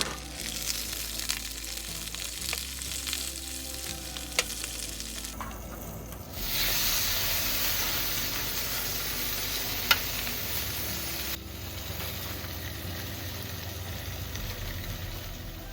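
Sausage, potatoes and vegetables frying in a pan, with a steady sizzle and a few sharp clicks of a utensil stirring. The sizzle gets louder for about five seconds in the middle.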